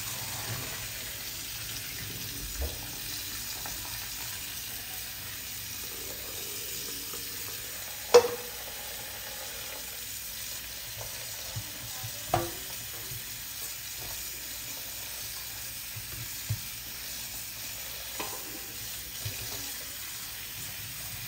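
Kitchen cookware and utensils being handled while cooked pasta is drained: a steady hiss with a few sharp clinks and knocks, the loudest a clank about eight seconds in.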